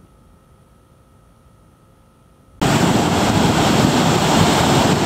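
Quiet at first, then about two and a half seconds in, ocean surf breaking starts suddenly and loudly, with wind noise on the microphone.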